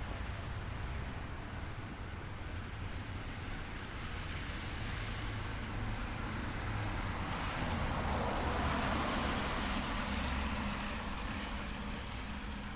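Rainy city street ambience: a vehicle passes on the wet road, its tyre hiss swelling about halfway through and fading near the end, over steady traffic rumble.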